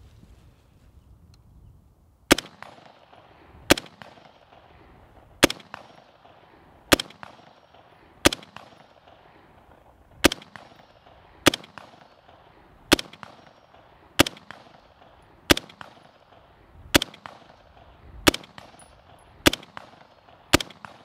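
Heckler & Koch G36 rifle in 5.56×45mm NATO fired as single shots at a steady pace, about fourteen shots roughly one every second and a half, starting about two seconds in. Each shot is followed by a short echo.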